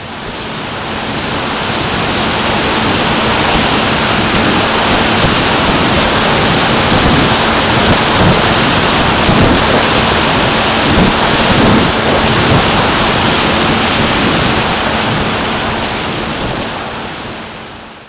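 Wind rushing over the onboard camera microphone of a SkyHunter model plane in flight, with a steady hum from its electric motor and propeller underneath. The noise fades out near the end.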